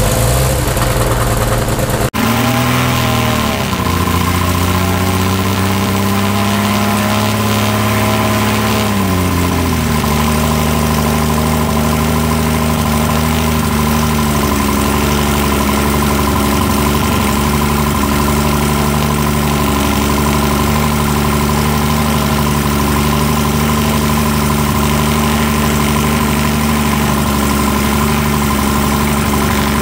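A Cessna 310's Continental six-cylinder piston engine running with its propeller turning. The pitch swings up and down in the first seconds, then settles to a steady idle about nine seconds in. It is firing on the right magneto alone, with the P-leads disconnected, because the left magneto is not firing.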